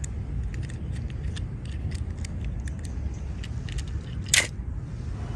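Die-cast metal toy cars clicking and clinking as they are handled and put into a plastic basket, with one louder clack about four seconds in, over a low steady rumble.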